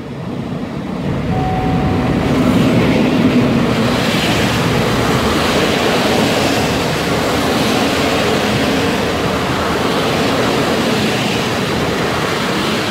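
PKP Intercity EP07 electric locomotive and its passenger coaches rolling in alongside the platform. The rumble of wheels on rail builds over the first couple of seconds as the locomotive draws level, then holds steady while the coaches pass.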